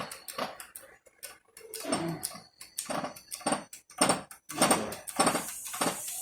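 A string of sharp metallic clicks and knocks with a brief ring, about two to three a second, louder and closer together from about halfway through: metal tools and parts being worked during a hub bearing job.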